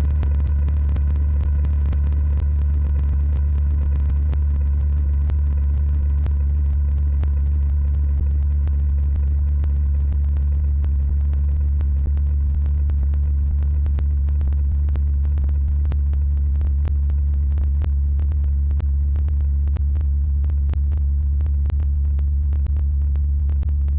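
A loud, steady low drone with constant crackling clicks, unchanging throughout: an extended synthetic sound effect.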